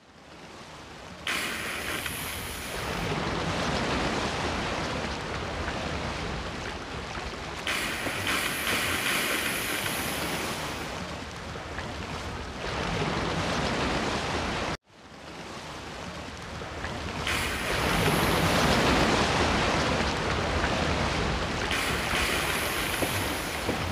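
Sea waves washing in slow surges with wind noise, a steady rushing without any calls. The sound drops out abruptly about fifteen seconds in and swells back up.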